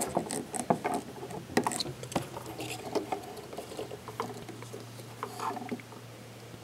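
Irregular small clicks and scrapes of hands working insulated spade connectors onto the metal tabs of a small 12 V gel cell battery, with plastic handling noise; the sharpest click comes right at the start. A faint low hum sets in about four seconds in.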